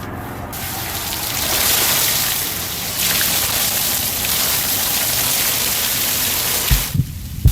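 Water running with a steady rushing hiss, followed near the end by a few low thumps.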